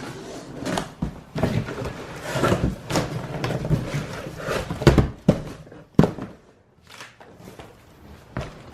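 Unpacking a shipping box by hand: rustling of cardboard and packing material with scattered knocks and thumps, the sharpest about five and six seconds in, then quieter handling near the end.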